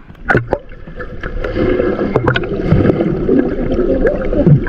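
Muffled water noise heard with the camera under water. A few sharp splashes come as it dips below the surface, then a steady churning, bubbling rush builds up as the net and swimmer move through the water.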